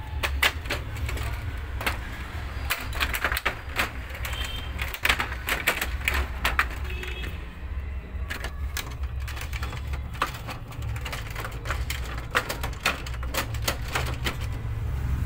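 Irregular clicking and rattling of plastic and metal parts as a Xerox WorkCentre copier's front door is fitted back on and fastened, over a low steady hum.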